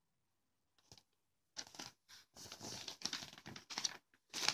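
Pages of a paper leaflet being handled and turned, rustling and crinkling in several irregular bursts, after a near-silent start with one faint tap about a second in.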